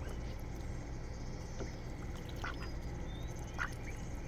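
Domestic ducks giving a few short quacks, the clearest two about halfway through and near the end, with faint high chirps in the background.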